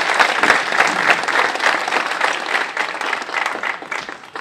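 Audience applauding, the clapping gradually fading away near the end.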